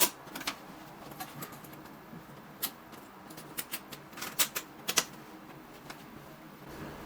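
Irregular sharp clicks and taps, about ten of them, as the flow meter's clamp-on transducer mounting parts (guide rail, pipe straps, transducers) are handled and fitted against the pipe.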